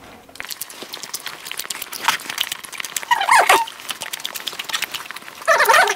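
Eating sounds of chewing, with chopsticks clicking on plastic containers, and a dog whining in short falling whimpers about three seconds in and again near the end.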